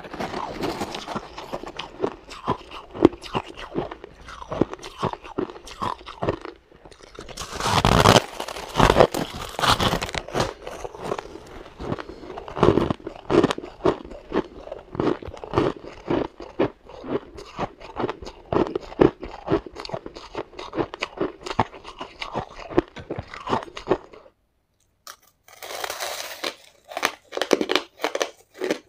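Close-up chewing and crunching of mouthfuls of shaved ice: dense, rapid crunches. The crunching breaks off for about a second near the end, then starts again.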